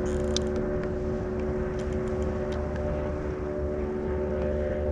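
A steady engine drone holding several unchanging tones over a low rumble, with a few faint ticks.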